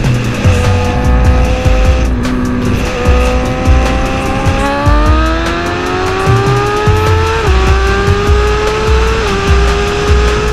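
Liter-class sport bike engine pulling hard: its pitch climbs steadily, then drops sharply at quick upshifts, twice in the second half. A hip-hop beat with heavy bass pulses runs underneath.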